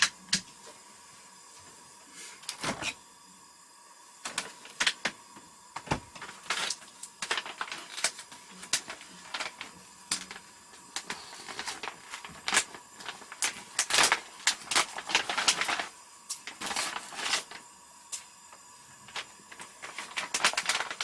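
Objects being handled: irregular clicks, knocks and rustling, busiest in the middle and late part, with a sharp knock about six seconds in.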